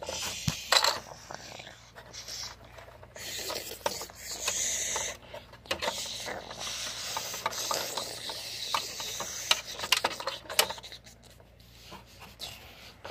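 Hissing "shhh" shower-spray noises made by mouth for a toy shower, loudest a few seconds in, over clicks and taps of small plastic dollhouse pieces being handled.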